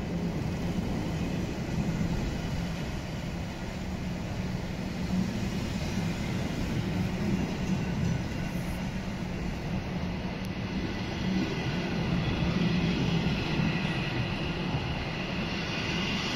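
A train of SJ passenger coaches rolling out of a station, its wheels rumbling steadily on the rails. A higher squeal grows in near the end.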